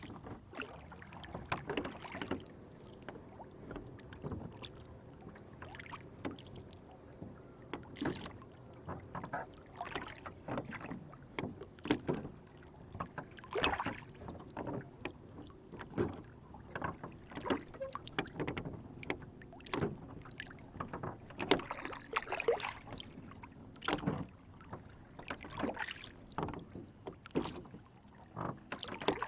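Lake water splashing and lapping around a small wooden rowboat: a steady run of irregular small splashes and knocks against the hull.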